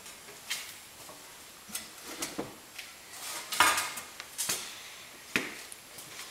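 A 1950s Lodge cast iron skillet being picked up and handled, giving a string of separate knocks and clanks, the loudest about halfway through with a short metallic ring.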